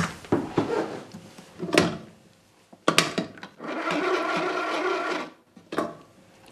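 A black desk telephone being picked up and worked. A run of knocks and clicks comes as the handset is handled, then a sharp click about three seconds in. A steady mechanical whirr from the phone follows for nearly two seconds, and a last click comes near the end.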